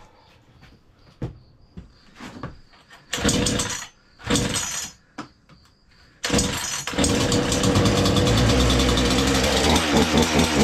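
Craftsman 16-inch 42cc two-stroke chainsaw being pull-started on choke: two short bursts of firing that die away, then about six seconds in the engine catches and keeps running. Near the end the engine speed rises and falls.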